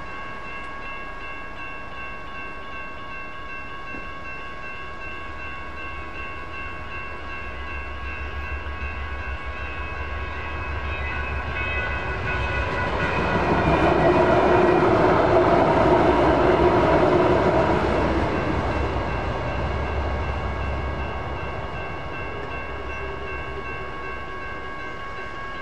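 Railroad crossing bells ringing steadily while a light rail train passes, its rumble and wheel-on-rail noise swelling to a peak about halfway through and then fading away.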